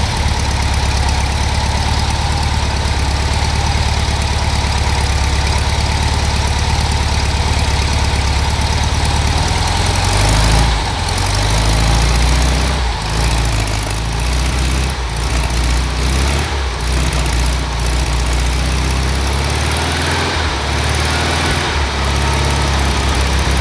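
Freshly rebuilt 1954 VW Beetle 36 hp 1192 cc air-cooled flat-four engine idling steadily, its note changing about ten seconds in.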